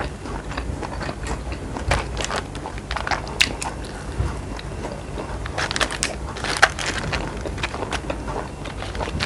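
Close-up eating: a person biting and chewing gimbap (Korean seaweed rice roll), with many small crisp crunches and crackles, busiest a little past halfway.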